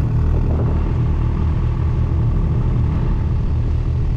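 Snowmobile engine running steadily under way, a constant low drone that neither rises nor falls.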